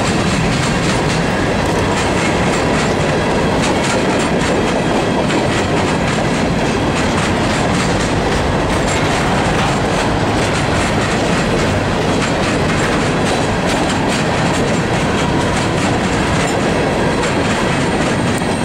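Freight train of open-top hopper cars rolling past: steady rumble of steel wheels on the rails with a continuous clickety-clack of wheels over rail joints.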